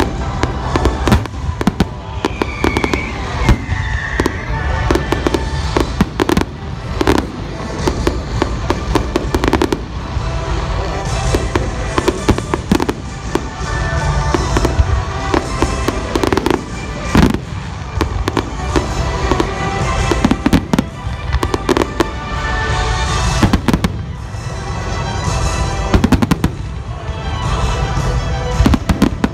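Aerial fireworks display: shells bursting in rapid succession, with many sharp bangs and crackles, over music played along with the show.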